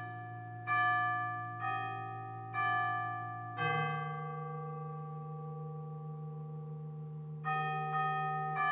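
Chimes playing a slow melody: single ringing notes about a second apart, one note held for about four seconds midway, with low tones ringing underneath that shift along with the melody.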